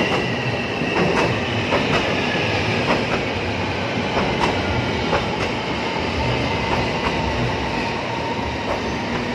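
Rapid KL light-rail train pulling in alongside the platform and slowing: a high whine that falls slowly in pitch over a steady rumble, with a short wheel clack every second or so.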